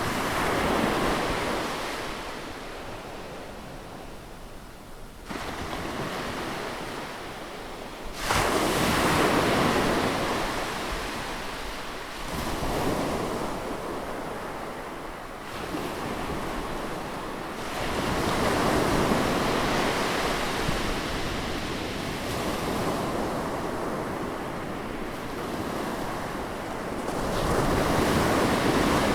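Sea waves breaking close on the shore, a new wave every few seconds. Each surge of wash comes in suddenly and fades slowly.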